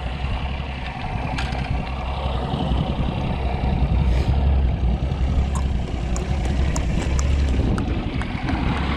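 Bass boat's outboard motor running on the water: a steady low rumble under wind and water noise, with a few faint light ticks in the middle.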